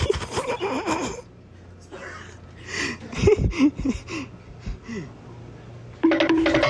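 A person's voice: short breathy vocal sounds, then a loud call held on one pitch for about a second near the end.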